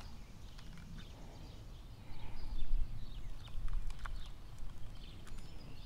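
Light, irregular clicks and ticks from a new Ancient Mariner 6000 baitcasting reel being handled and turned over in the hands. Low wind rumble on the microphone comes in from about two seconds in.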